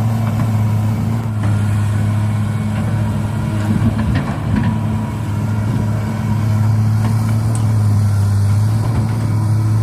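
Steady, diesel-like engine hum at an unchanging pitch, like a truck idling, with a few faint clicks and rattles about four seconds in.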